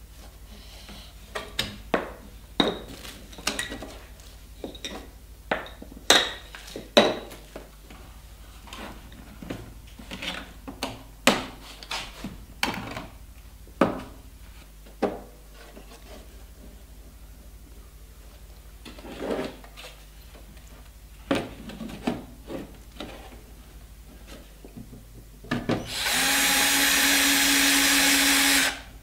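Scattered clicks and knocks of plastic TV panel parts being handled and the back cover being fitted, then near the end a cordless drill-driver runs steadily for about three seconds, driving a screw into the TV's back cover.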